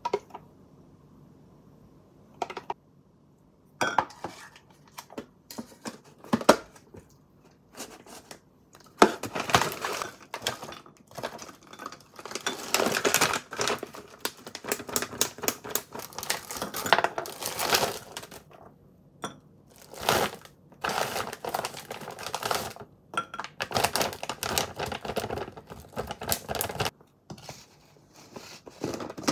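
A few separate clicks and taps of a spoon on plastic and glass containers, then a long stretch of a plastic bag of blueberries crinkling and rustling as it is handled. Near the end a plastic jar's screw lid is twisted open.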